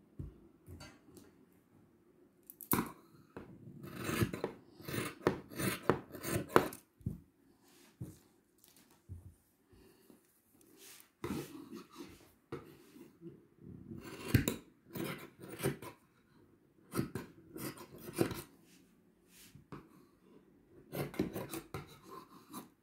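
Scissors cutting through stretch velvet fabric in several runs of short, quick snips, with the cloth being handled between runs.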